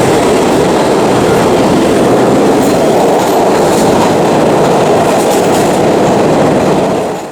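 Subway train running through the station: loud, steady noise that cuts off suddenly at the end.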